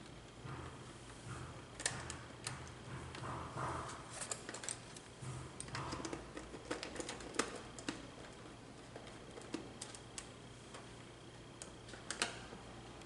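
Hands handling and bending a stiff wire at the terminals of a plastic contactor on a metal DIN rail: scattered, irregular light clicks and taps with soft rustling.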